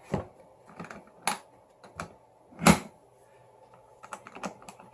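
Scattered clicks and knocks from handling a homemade airsoft bomb prop and its parts: a few single knocks, the loudest just past the middle, then a quick run of light clicks near the end.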